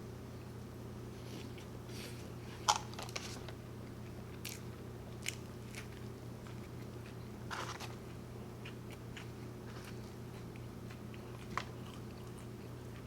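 A person chewing and biting into In-N-Out burger and fries, with scattered crisp crunches, the loudest a little under three seconds in, others near eight seconds and near the end. A steady low hum runs underneath.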